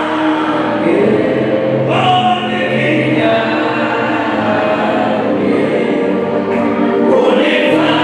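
A choir or congregation singing a gospel song together, with held notes that change every second or so.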